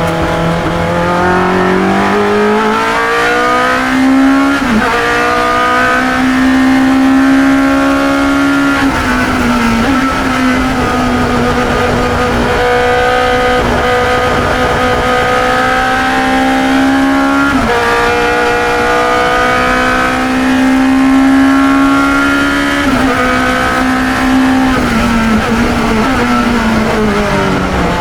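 Onboard sound of a 1972 Chevron B21's 2-litre racing engine under hard acceleration. Its note climbs through the revs and drops sharply at gear changes about 5 s and 9 s in and again around 17 s, then falls in several quick steps near the end.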